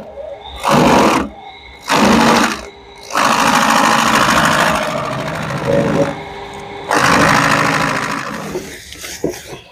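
Chaff cutter shredding a banana stem: a loud chopping rasp each time the stem is fed into the blades. There are two short bursts in the first three seconds, then a long run from about three to six seconds and another from about seven to eight and a half seconds, with the machine running more quietly in between.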